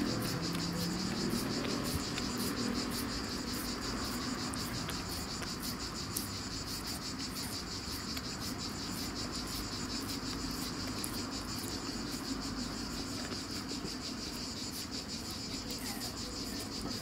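A steady, high-pitched chorus of insects chirring with a rapid pulse, and a low hum fading out over the first few seconds.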